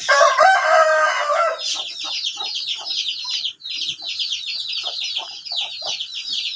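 A rooster crows once, lasting about a second and a half, followed by a dense, continuous chorus of chicks peeping, several high peeps a second, with short low clucks mixed in.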